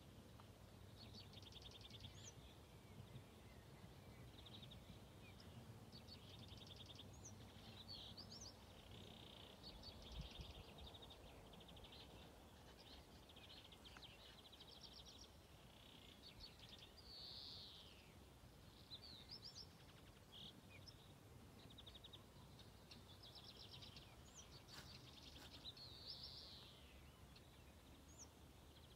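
Faint birdsong from several birds: quick repeated chirps and trills. Under it is a steady low rumble of background noise, with one soft low knock about ten seconds in.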